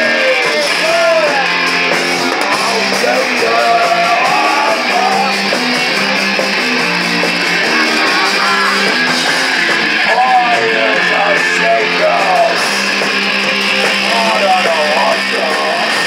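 Live rock band playing loud: electric guitar chords over drums, with a voice singing a bending melody on top.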